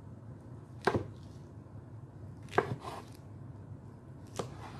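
Knife cutting straight down through a sushi roll onto a cutting board, three sharp knocks a little under two seconds apart.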